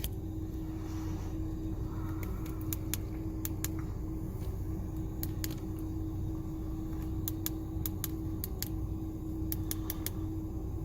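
Steady low hum inside the cab of a second-generation Ford Raptor with the truck idling, with many light, irregular clicks of buttons being pressed on a COBB Accessport handheld tuner.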